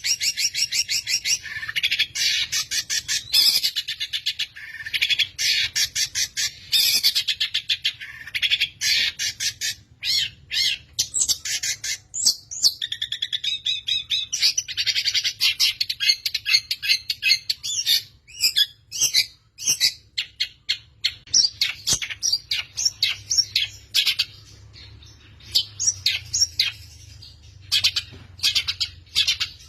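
Long-tailed shrike (pentet) singing rapid rolling trills: fast runs of high, sharp repeated notes in bursts with short breaks, the fast 'roll' and 'tembak' song that keepers play as training material for songbirds.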